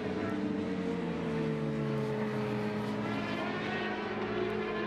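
Several racing superbike engines running at high revs, their tones overlapping; one drops in pitch over the first two or three seconds while another holds a steady note.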